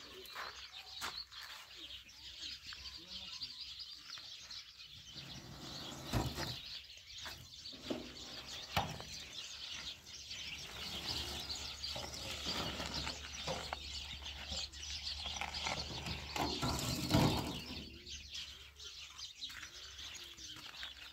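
Birds chirping, with scattered knocks and rustling and one louder rustle or thud about three-quarters of the way through.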